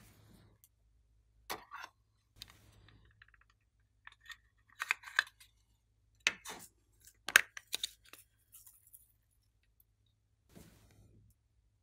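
Small plastic and clay craft pieces handled and set down: a scattered string of short clicks, crinkles and rustles, loudest around five and seven seconds in.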